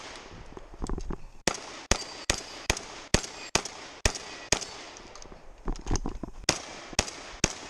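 A string of shots from a 12-gauge semi-automatic VR-80 shotgun fired fast, about two a second, with a short break past the middle before the firing picks up again.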